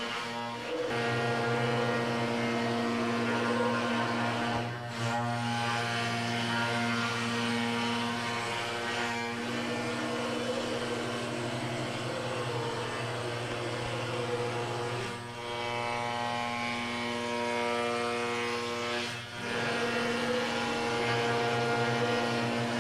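CNC router spindle running steadily with a wide surfacing bit, skimming flat the MDF spoilboard: a steady pitched hum over the rush of the cut. The sound briefly dips four times.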